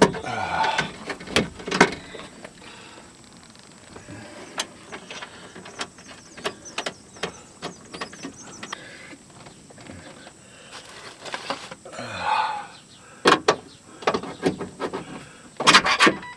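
Irregular metallic clicks, knocks and scrapes of a power window regulator being handled and lined up with its bolt holes inside a pickup's steel door. The loudest knocks come near the end.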